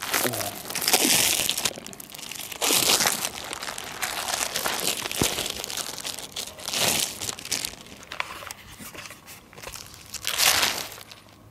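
Plastic wrapping on a block of ballistic gel crinkling as the block is handled and turned over. There are about four louder rustling bursts, with quieter rustle between them.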